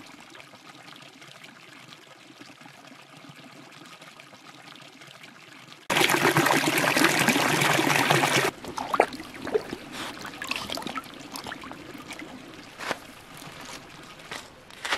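A shallow creek trickling and splashing over rocks. It is faint at first, then loud and close for about two and a half seconds from about six seconds in, and cuts off suddenly. After that it is faint again under scattered knocks of footsteps on the stony creek bed.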